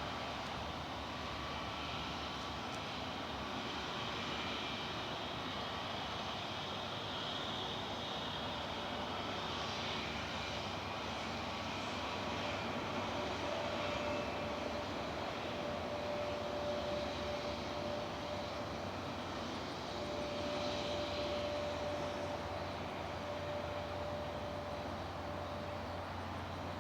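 Airbus A321neo airliner's jet engines at takeoff power, a steady distant rush of engine noise as the jet departs, with a faint steady hum coming in about halfway through.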